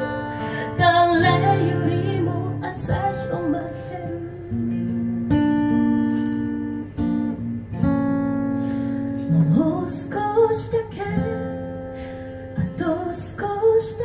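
Acoustic guitar strumming chords, with a woman singing short phrases over it about a second in and again in the second half.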